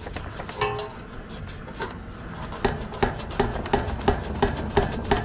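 Steel condenser fan blade hub being worked loose on its motor shaft, giving sharp metallic clicks about three times a second from about halfway through.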